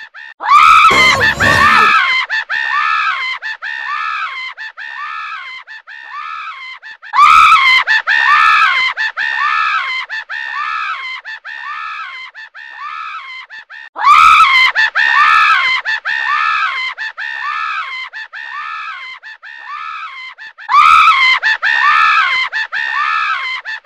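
A cartoon character's scream carried by a heavy echo effect: a loud cry starts four times, about every seven seconds, and each trails off in a string of fading repeats at about two a second.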